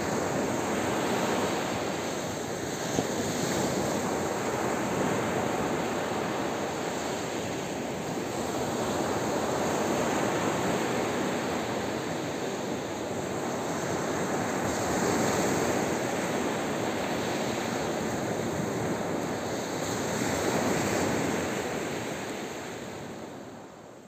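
Sea surf breaking and washing up a sandy beach: a steady rush of white water that swells and eases every few seconds, fading out near the end.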